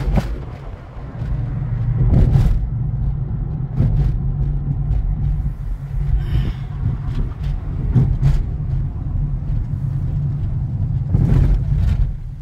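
Car driving on a paved road, heard from inside the cabin: a steady low rumble of road and running gear, with a few short thumps, the loudest about two seconds in and near the end.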